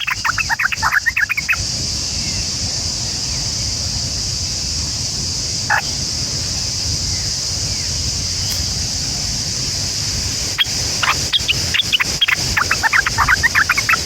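Small birds chirping in fast runs of short, high calls for about a second and a half at the start and again through the last few seconds, over a steady high-pitched hiss.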